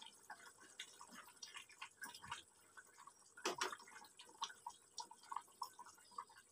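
Faint, irregular bubbling and small plops from a hot fish curry in a kadai on a gas burner as pieces of tilapia are slid into it, with one sharper knock about three and a half seconds in.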